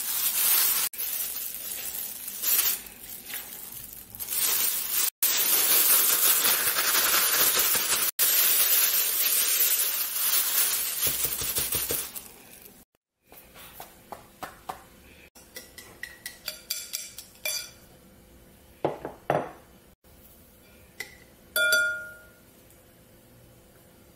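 Thin plastic bag rustling loudly as cabbage leaves are shaken in frying mix to coat them, for about the first twelve seconds. After a break, a wire whisk clicks and clinks against a glass bowl while mixing batter, with a few brief ringing glass notes.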